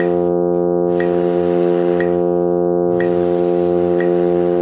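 Tuner app's sustained electronic drone, one steady reference note held without change, with metronome clicks about once a second keeping the beat.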